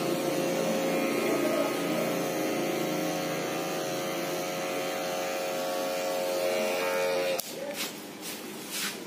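Electric hair clipper running steadily, then switched off suddenly about seven seconds in, followed by a few faint clicks.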